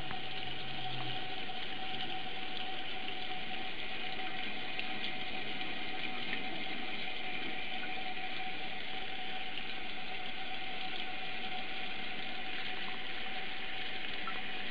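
Tap water running steadily into a bathroom sink, an even rushing noise with a faint steady tone in it.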